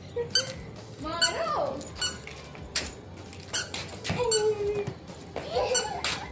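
A toddler's short high squeals and cries, some gliding down in pitch, mixed with sharp knocks as a light plastic ball is kicked about on the concrete.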